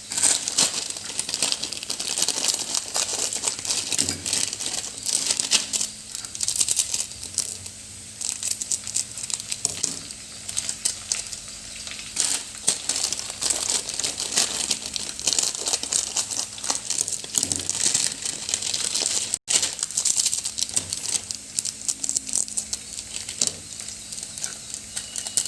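Chopped onion frying in hot oil in a kadhai, with a steady crackling sizzle and the scrape of stirring as it is browned.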